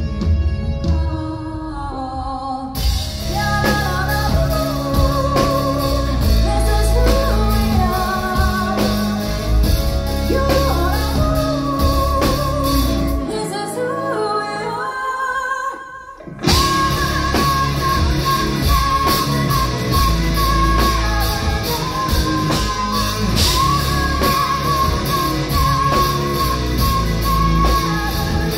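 A rock band playing live with a woman singing lead over guitar, bass and drums. About halfway through, the heavy low end drops out for a few seconds, then the full band crashes back in.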